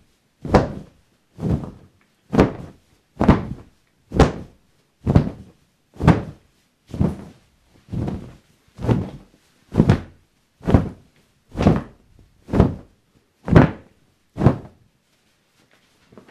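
Footsteps walking at a steady, slow pace, about one step a second, each a solid thud on a hard surface; the steps stop near the end.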